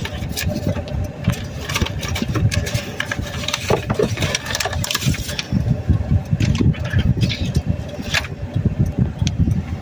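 Low, uneven vehicle rumble of an idling car with traffic around it, with scattered small clicks and rustles of handling inside the car.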